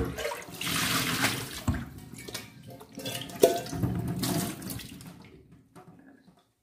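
Tap water running into a stainless steel pot and water being poured out of the pot into a stainless steel sink, with a few sharp knocks of the metal pot. The water sound fades out about five seconds in.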